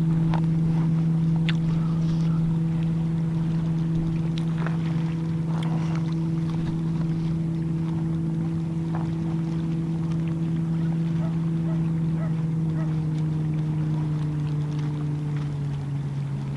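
A boat's engine drones steadily as a low hum, sinking a little in pitch near the end.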